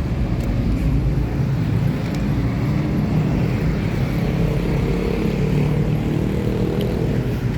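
A vehicle engine running steadily at idle, a continuous low rumble.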